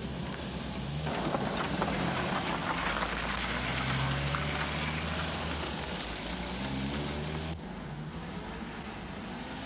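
Van engine running and driving off, its pitch rising and falling as it picks up speed. About two seconds before the end the sound drops suddenly to a quieter steady street hum.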